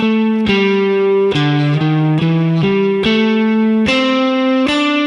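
Electric guitar playing a single-note A minor pentatonic lick, about nine notes picked one after another, using short chromatic passing notes between the scale tones. It dips lower in pitch in the middle and climbs higher near the end.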